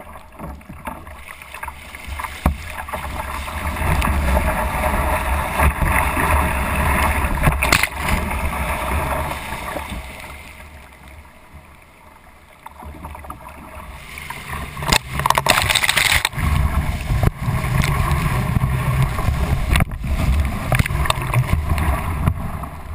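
Surf rushing and splashing against a sit-on-top kayak, with paddle strokes in the water. The rush eases off about ten seconds in, then swells again a few seconds later as a breaking wave carries the kayak sideways.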